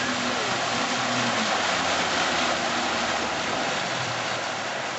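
Towing motorboat's engine running at speed, a low drone under the loud rush of water from the wake and hull.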